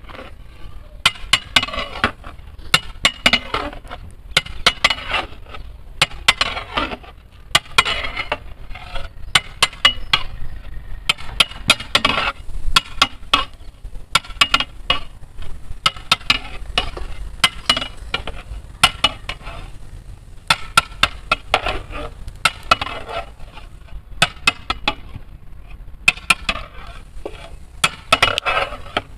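Metal ladle stirring and scraping around a large cooking pot of chicken curry, with clinks and scrapes coming in short bursts every second or two.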